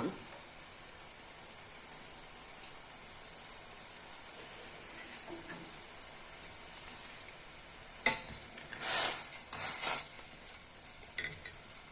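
Herbal decoction of ginger and other herbs simmering in a pan over a medium gas flame, a steady low hiss. About eight seconds in comes a sharp knock, then about two seconds of scraping and stirring in the pan, with a couple of light clicks near the end.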